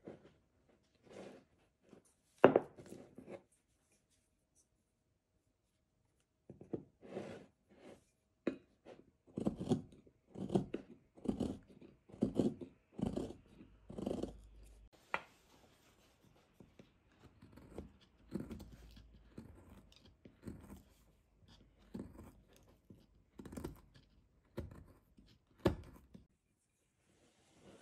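Hand chisel cutting into hard Japanese zelkova wood: a series of short crisp cutting and scraping strokes, roughly one a second, with a louder sharp crack about two and a half seconds in followed by a pause of a few seconds.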